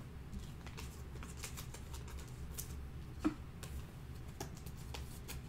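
Faint scattered clicks and light rustling of trading cards being handled, with one sharper click about three seconds in.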